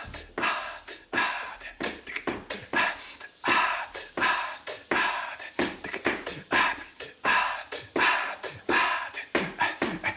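A man making rhythmic, breathy vocal sounds: forceful puffs of breath, about two a second, used as voice in an improvised movement performance.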